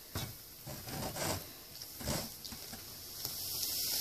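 A few soft knocks and rubbing sounds as a cup is handled, then about three seconds in a steady fizzing hiss starts and grows as vinegar is poured onto baking soda in a clay model volcano.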